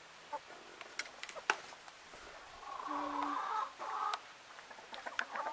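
Domestic hens clucking, mostly in the second half, with a few sharp clicks in the first couple of seconds.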